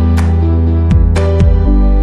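Background music: soft, calm instrumental with sustained chords and plucked notes about twice a second.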